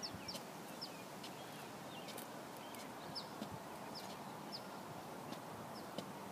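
Small bird chirping: a string of short, high, falling chirps, irregularly spaced, over a faint steady outdoor background.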